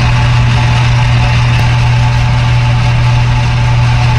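Metal lathe running steadily with its three-jaw chuck spinning: a loud, even motor-and-gearhead hum with a strong low drone, switched on just before and holding constant speed.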